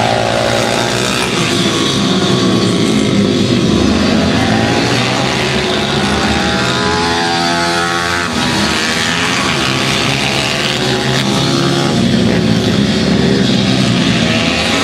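Several 150 cc pit bikes racing, their small single-cylinder engines revving up and down over one another as they lap. About halfway through, one bike passes close and its pitch drops as it goes by.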